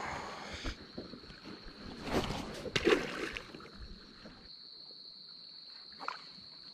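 Water lapping and sloshing at a fishing boat's hull, with a few knocks and rustles of handling, over a steady high-pitched whine that sets in under a second in.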